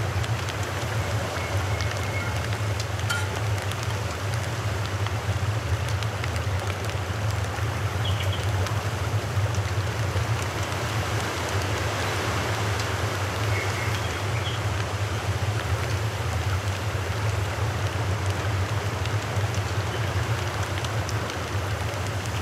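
Fish deep-frying in hot oil in a pot, a steady crackling sizzle that goes on without a break, over a steady low hum.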